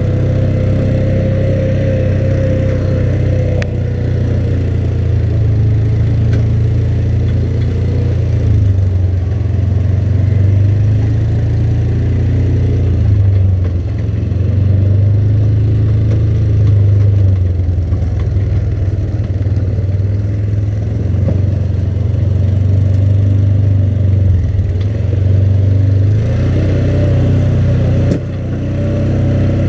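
ATV engine running steadily as the four-wheeler rides along, a low drone with a faint whine over it; the engine note drops briefly near the end.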